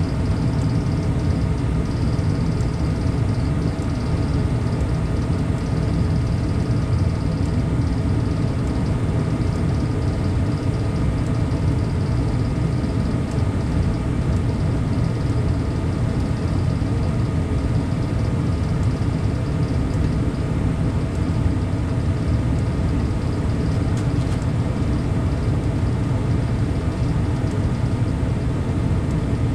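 Carrier gas furnace running steadily: the motor hum of the inducer draft fan and blower with a constant rush of air and a few faint steady tones.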